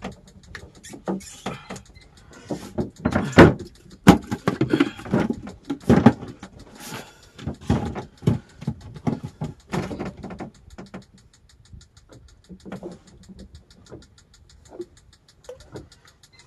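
Irregular knocks, thumps and rattles of hands and gear against a small wooden boat's deck and a cool box, loud and busy for the first ten seconds or so, then sparser and softer.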